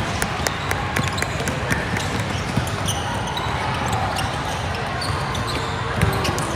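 Basketball bouncing on a gym floor during play: a run of sharp bounces, several a second, over a steady hubbub in the gym.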